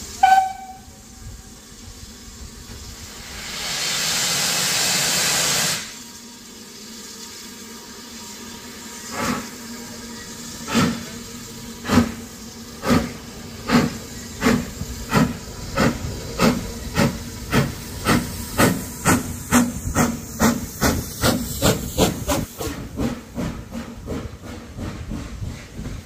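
Steam locomotive starting a train: a short whistle pip, then a loud burst of steam hiss for about two seconds. Slow exhaust chuffs follow and quicken steadily as it gathers speed, to about two and a half a second near the end.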